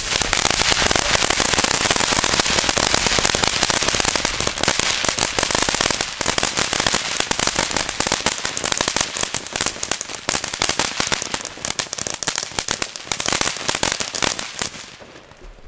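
Lesli ground fountain firework burning: a loud, steady spray hiss dense with crackling, starting suddenly and dying away near the end.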